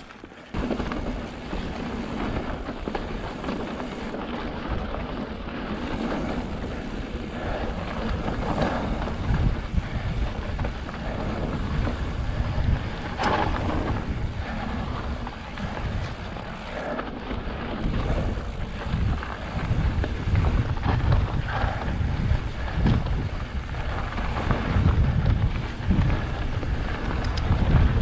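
Fezzari La Sal Peak mountain bike riding over rocky dirt singletrack: tyres rolling and crunching on loose rock, with scattered knocks and rattles from the bike. Heavy wind buffets the action camera's microphone.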